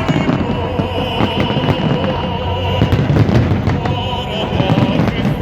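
Fireworks bursting and crackling in quick succession over loud music.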